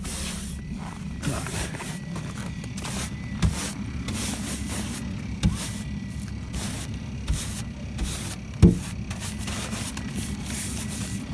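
1.4 TSI petrol engine of a 2018 Skoda Octavia idling steadily in the cold while warming up, a low even hum. Over it come repeated short rough rubbing strokes, and a sharp knock about three-quarters of the way through.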